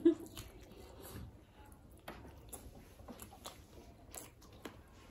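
Close-miked eating sounds: wet chewing, lip smacks and small mouth clicks as people bite and chew chicken, with a short hum right at the start.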